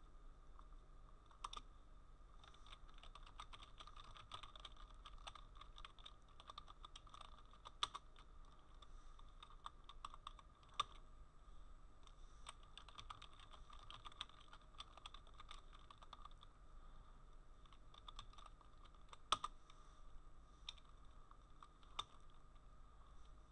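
Faint computer keyboard typing in quick runs of keystrokes with short pauses, a few single keys struck harder than the rest, over a low steady hum.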